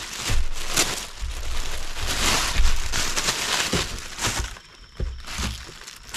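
Thin plastic bag crinkling and rustling as a coiled expandable garden hose is pulled out of it. It dies down about four and a half seconds in, leaving quieter handling with a few light knocks.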